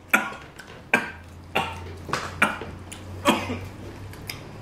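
A person coughing in a quick series of about six sharp coughs, brought on by the burn of a hot chili pepper just eaten.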